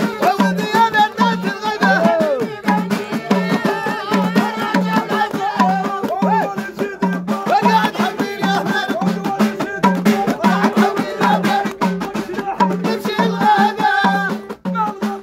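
Men singing a Moroccan folk song together, raw and full-voiced, over hand-beaten frame drums and a small hand drum keeping a steady beat of a little over two strokes a second, with sharp hand claps.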